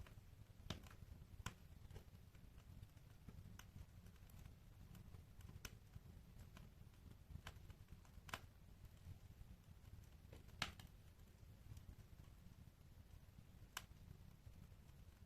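Wood fire in a fireplace crackling: sharp, irregular pops and snaps a second or several seconds apart over a faint low rumble, the loudest pop about ten and a half seconds in.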